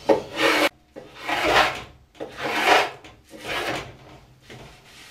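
Stanley RB5 hand plane shaving down the raised outer strips of a glued-up wooden board: five push strokes, about one a second, each a short rasping scrape of the blade through the wood.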